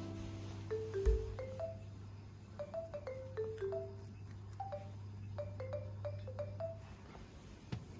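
Background music: a light melody of short, separate notes, like mallet percussion, over a steady low note that drops out about seven seconds in.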